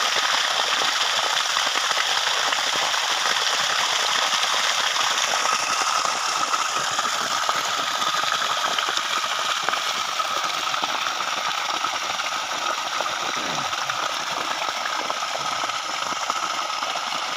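Water gushing steadily from the discharge pipe of a 30 HP, 20-stage V6 submersible pump and splashing onto the ground.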